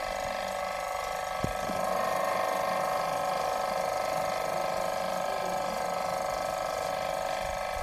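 Portable high-pressure AC-cleaning pump running steadily with an even mechanical drone, a little louder about two seconds in.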